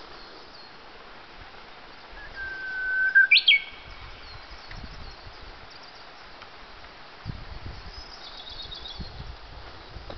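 Japanese bush warbler (uguisu) singing its song once, about two seconds in: a long steady whistle that swells in volume, then a quick rising-and-falling 'hokekyo' flourish. Faint twittering from another bird follows later.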